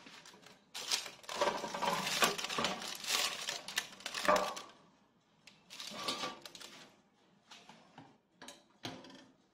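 Baking parchment rustling and a ceramic plate scraping and knocking against a metal pizza tray as a baked galette is slid onto the plate, followed by a few light clinks as the plate is set down on a wire cooling rack.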